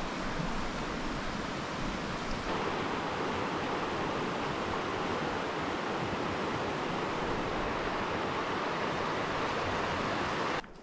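Shallow rocky river flowing over stones: a steady rushing of water that cuts off abruptly just before the end.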